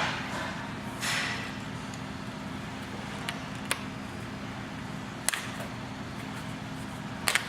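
Clicker die cutting press worked by hand through stiff leather that takes several passes: two swishing strokes in the first second or so, then a few scattered sharp clicks, over a steady low hum.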